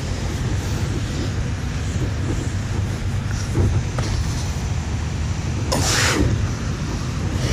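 Wind buffeting the microphone in a steady low rumble, with a few brief swishes of a rope being hauled hand over hand through gloves, the loudest about six seconds in.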